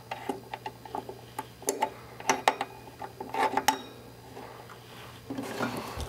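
Scattered small clicks and taps of Pangea Xtreme spade connectors and the amplifier's metal binding-post nuts being finger-tightened by hand, followed near the end by a short rustle as the speaker cable is handled.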